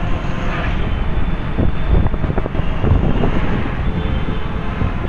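Wind buffeting the microphone and road noise from riding through city traffic, with motorcycle engines around. The rumble is dense and low, broken by short irregular gusts.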